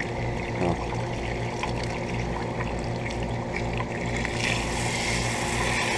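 Outdoor central air conditioner condensing unit running: a steady hum with a regular low pulsing under the whoosh of air, the rushing growing louder about four and a half seconds in.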